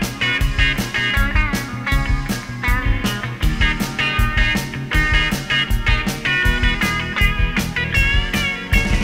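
Rock music with a steady, driving drum beat.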